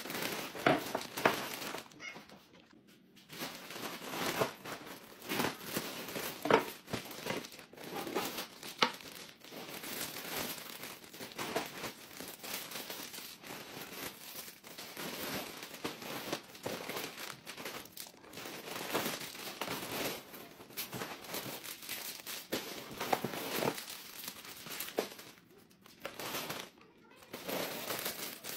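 Plastic packaging, a grey mailer bag and clear plastic bags, crinkling and rustling in irregular bursts as it is handled and pulled open. There is a brief lull near the start and another near the end.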